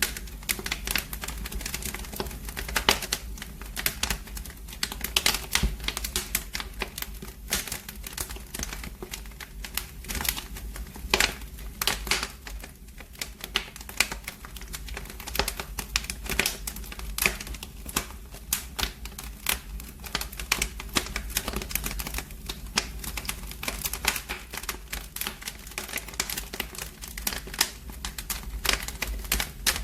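Wood fire burning in a fireplace, crackling with many quick irregular snaps and pops over a steady low rumble.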